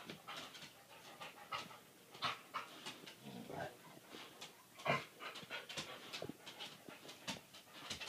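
A dog panting in quick breaths while rubbing and scuffing its body against the corner of a piece of furniture.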